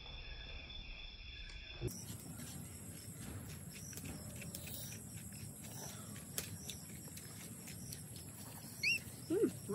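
Night insects trilling steadily and high, with scattered small clicks. Near the end come a few short, rising squeaks from a baby macaque.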